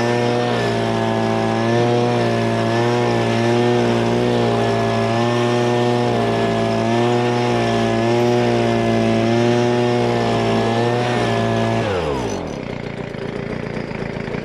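Leaf blower running steadily with a slightly wavering pitch, then switched off about twelve seconds in, its pitch falling as it winds down.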